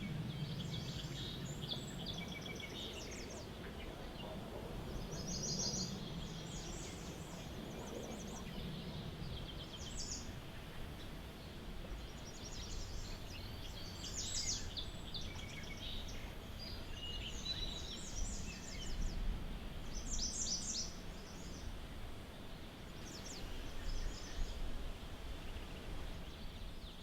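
Steady rushing of a waterfall, with birds chirping over it in many short, quick trills.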